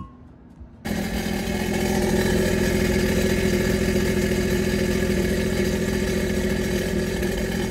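Sea-Doo RXT-X 300 personal watercraft's supercharged three-cylinder engine idling steadily through its stock exhaust and resonator box. It starts abruptly about a second in.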